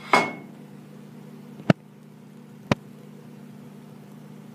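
Two sharp metallic clicks about a second apart as a stainless steel frying pan is tilted and turned over an electric coil burner, over a steady low hum.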